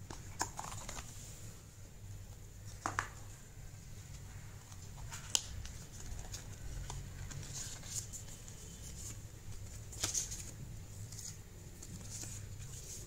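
Cardboard and paper packaging being handled: soft rustling and scraping of a phone box's cardboard insert and paper leaflets, broken by a few sharp clicks and taps, over a steady low hum.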